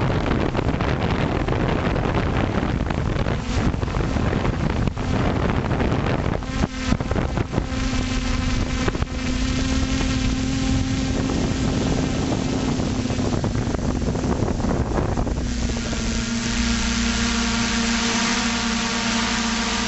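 Electric motors and propellers of an FPV drone, heard through its onboard camera, whining with several steady tones, with wind buffeting the microphone. The buffeting is heaviest in the first half. The motor tones shift to new pitches about two-thirds of the way through.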